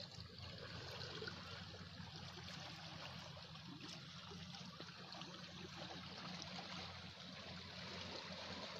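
Sea water washing and trickling over a pebble shore, a steady rush.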